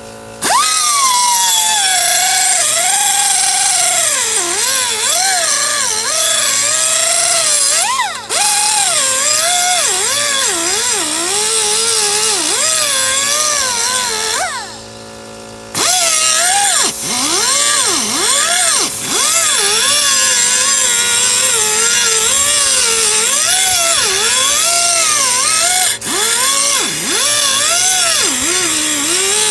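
Handheld power sharpening tool grinding the edge of a steel mower blade, its motor whine wavering up and down in pitch as it bears on the metal over a loud grinding hiss. It stops briefly about eight seconds in and pauses for about a second around the middle before it starts grinding again.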